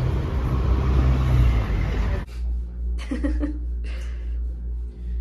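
Loud rushing outdoor noise with a heavy low rumble that cuts off abruptly about two seconds in, giving way to a steady low hum inside a moving cable-car gondola, with a few brief faint knocks and a short sound around a second later.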